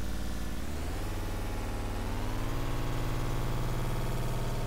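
Oscilloscope music: a buzzy synthesized tone thick with harmonics, the audio signal that draws the picture on an XY oscilloscope. Its pitch glides upward about a second in and again about two seconds in, then holds steady.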